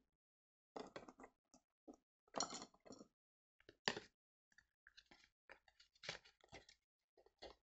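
Faint plastic sauce sachet crinkling in short, irregular crackles and clicks as it is squeezed and handled over a paper noodle bowl.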